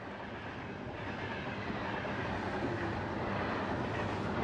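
A steady rushing rumble on a film soundtrack, slowly growing louder.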